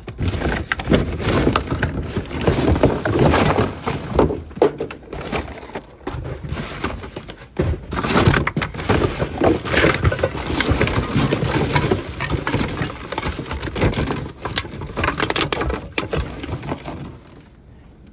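Rummaging through a garbage bin: cardboard boxes, cereal boxes and plastic bags being shoved aside and crumpled, a continuous jumble of crackling, rustling and knocks that dies down near the end.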